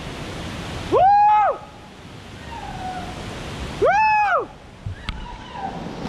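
Rushing water of a small waterfall in a rocky gully, a steady hiss, broken twice by a loud, high call about a second in and again about four seconds in. Each call lasts about half a second and rises then falls in pitch.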